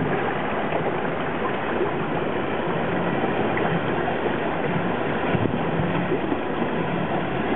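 Boat under way at sea: a steady rush of water and spray, from the wake and from a person being dragged on a tow rope astern, over the boat's engine running.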